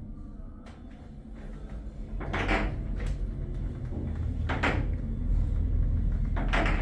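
Elevator car travelling between floors: a steady low rumble that grows louder about two seconds in, with a few short louder noises over it roughly every second or two.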